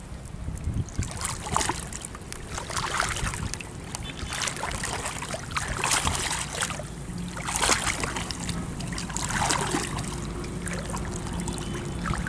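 Water splashing and sloshing in repeated bursts about every second or two, over a steady low rumble.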